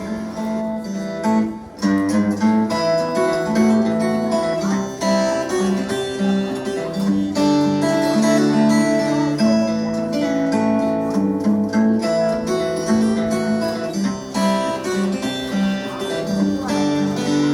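Background music led by a strummed acoustic guitar, with changing chords at an even level.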